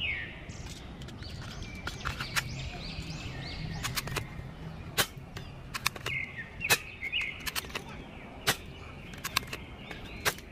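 Toy MP40 gun being loaded and fired at plastic bowling pins: a dozen or so sharp clicks and snaps at irregular intervals, the loudest around the middle. Birds chirp in the background.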